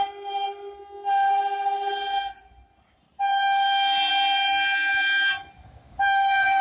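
WAG-7 electric locomotive's horn sounding in repeated blasts of one steady pitch: a short one at the start, a blast of about a second, a long blast of about two seconds, and another starting near the end.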